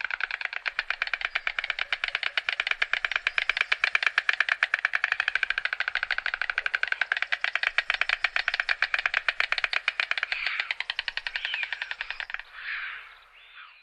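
White stork bill-clattering: a long, rapid, rattling run of beak clacks that stops shortly before the end, followed by a few brief, uneven sounds.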